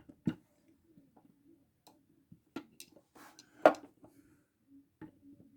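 Screwdrivers being handled and set down among other tools: scattered light clicks and taps, with one louder clack a little past halfway, over a faint steady hum.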